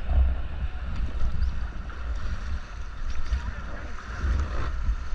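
Rushing river water around a raft, with wind buffeting the microphone in uneven low rumbles.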